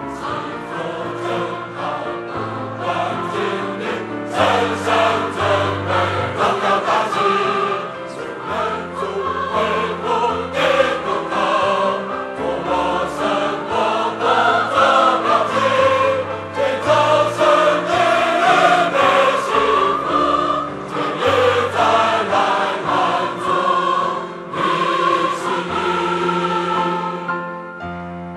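Large mixed choir singing a Chinese hymn in unison over a steady instrumental accompaniment with held bass notes. Near the end the singing stops and a piano carries on alone.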